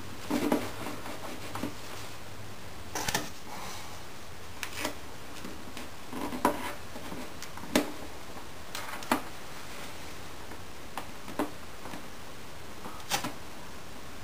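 Hands working on a guitar at a wooden workbench: irregular small clicks, taps and rustles, about eight in all, over a steady background hiss, as tape and binding are handled on the instrument's edge.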